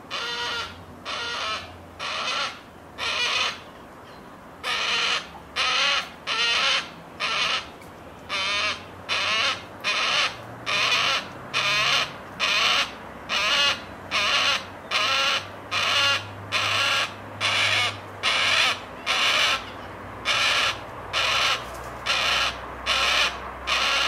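Juvenile yellow-tailed black cockatoo giving short calls over and over, about one every 0.7 seconds, with a few brief pauses. These are the begging calls of a young bird whose parents are feeding close by.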